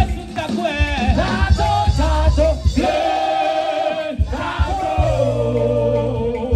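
A woman singing live into a microphone over amplified backing music with a steady bass line; she holds two long notes, the first about three seconds in and the second from about four seconds to the end.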